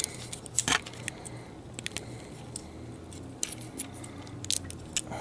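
Scattered small hard-plastic clicks and taps: a plastic filler piece is being pushed and worked into a tight slot in a Transformers action figure's leg.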